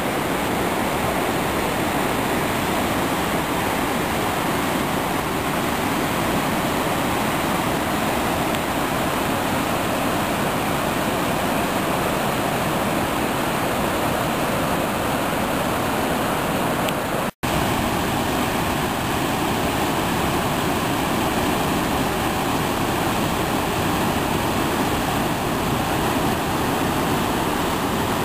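Whitewater creek rapids rushing steadily over boulders at high flow. The sound cuts out for an instant a little past halfway, then the same rush resumes.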